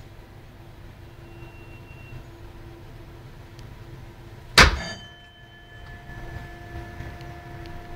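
Low steady hum in a tram cab. A little past halfway comes one loud, sharp metallic clang, and ringing tones linger after it.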